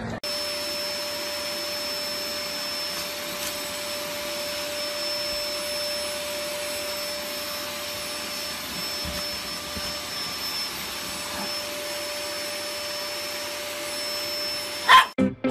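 Vacuum cleaner running steadily, its hose held to a dog: an even hiss with a steady hum and a high whine over it, cutting off sharply near the end.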